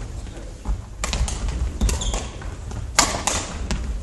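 Badminton doubles rally: rackets strike the shuttlecock with several sharp pops, about a second apart, over dull thumps of players' footwork on a wooden gym floor.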